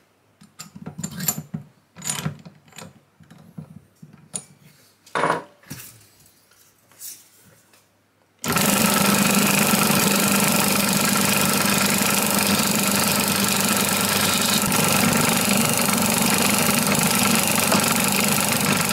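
A few light clicks and knocks as a threaded rod is fitted and tightened into a drill press chuck. Then, about eight and a half seconds in, the drill press motor switches on and runs steadily, spinning a reloading collet die's anvil for polishing.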